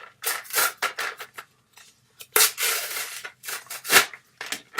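Plastic and card retail packaging of a super glue tube being torn and pulled open, with a series of irregular crinkling, crackling and tearing noises. The loudest burst comes about two and a half seconds in, and a sharp crack follows near four seconds.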